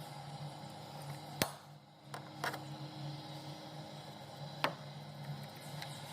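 Hand tools clicking and knocking against metal four times, each sharp and brief, over a steady low hum.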